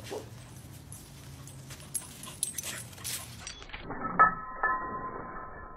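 A dog, with light clicks and jingles over a low steady hum. About four seconds in, the sound switches abruptly to a duller recording that carries a few short high tones.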